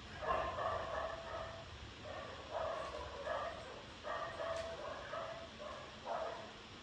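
An animal's voice in short repeated calls, about one every second and a half.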